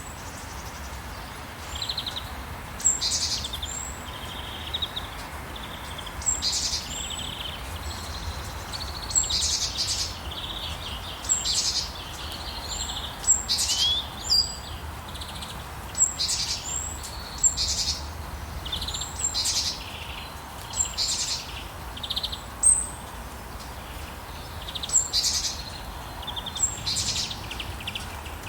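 Songbirds calling in short high chirps and buzzy phrases, a new phrase every second or two, over a steady hiss of falling rain.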